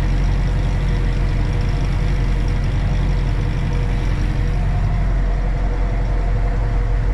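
Tractor engine running steadily at working revs, about 1300 rpm, while it drives a feeder wagon feeding out along the barrier, heard from inside the cab with a steady whine over the low engine hum.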